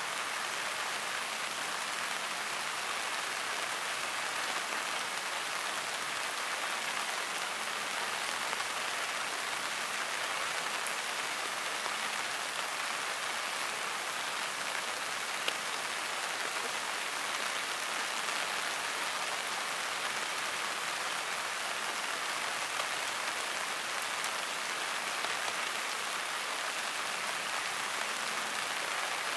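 Steady rain falling, an even hiss with no let-up, with a single brief tick about halfway through.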